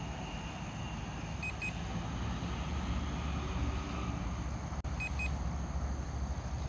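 Two pairs of short, high electronic beeps, about three and a half seconds apart, from the drone's remote controller warning the pilot, over a steady low rumble of background noise.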